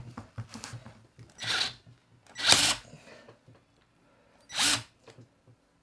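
Ryobi 18V RSD18 cordless screwdriver run in three short bursts, trying to drive a large PZ3 screw, already sunk to its head in a log, further into the wood.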